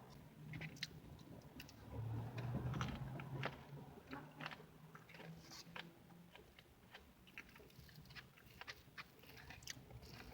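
A person chewing and eating pie close to the microphone, with many small wet mouth clicks and smacks over a low hum.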